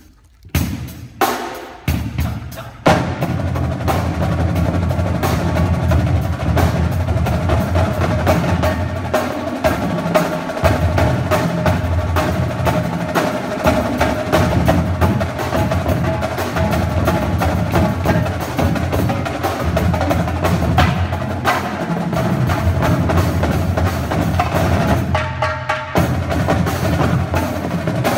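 Marching-percussion drumline, with multi-tenor drums (quads), playing a warm-up exercise. A few separate strikes open it, then fast, continuous drumming runs on, with a brief pause about 25 seconds in before it picks up again.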